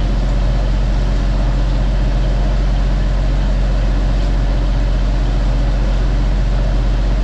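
Fishing trawler's engine running steadily, a loud, even low drone that does not change.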